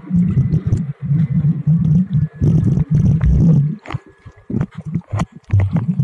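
Muffled underwater rumbling and bubbling picked up by a submerged camera, in bursts with short gaps, giving way about four seconds in to scattered clicks and pops.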